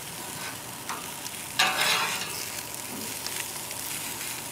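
Vegetables sizzling steadily on a hot grill grate. A little over a second and a half in there is a louder hiss lasting about half a second, after a light click about a second in.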